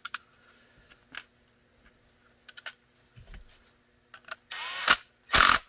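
Small plastic clicks as a belt claw is handled and fitted onto a Kydex holster. Near the end, a power screwdriver runs in two short bursts, driving the claw's screw.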